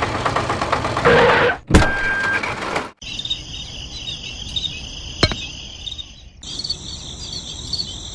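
A rhythmic mechanical rattling noise that cuts off after about a second and a half, followed by a click and a short steady tone. About three seconds in, a steady high-pitched insect chirring like crickets begins, broken by a brief gap about six seconds in.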